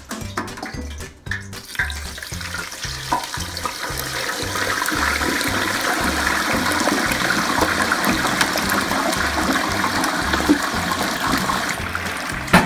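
Liquid rushing and bubbling in an electric turkey fryer, building up over the first few seconds and then holding steady with fine crackles, over background music with a steady bass beat.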